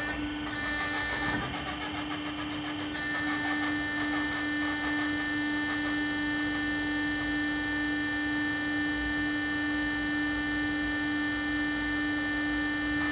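Hydraulic drive of a monoser PB15-R3 remote-controlled concrete placing boom running with a steady hum and whine as the boom slews. The whine grows stronger about three seconds in.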